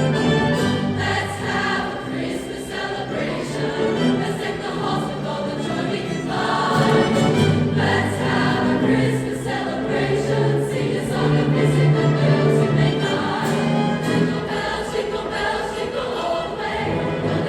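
A choir singing, holding long sustained notes.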